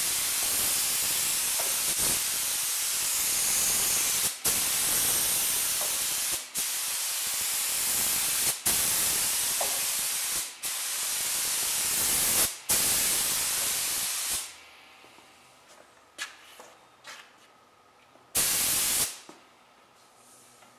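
Compressed-air gravity-feed spray gun hissing as it sprays epoxy primer in long passes, the trigger let off briefly about every two seconds. The spraying stops about fourteen seconds in, followed by a few light clicks and one more short burst of spray near the end.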